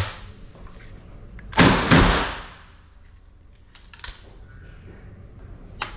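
Two shots from a 12-gauge over-and-under shotgun, a fraction of a second apart: a .410 fired through a stacker adapter in the top barrel, and a 12-gauge shell in the lower barrel. Each shot has a long echoing tail. Lighter clicks come before and after.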